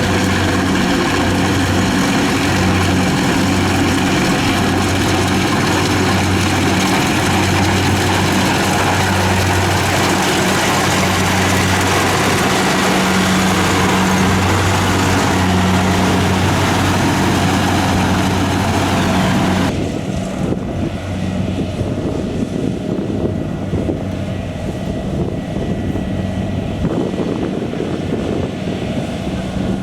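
Rice harvesting machine's engine running steadily under load, a loud hum with a dense mechanical hiss over it. About two-thirds of the way through, the hiss cuts off suddenly and a quieter, rougher engine sound carries on.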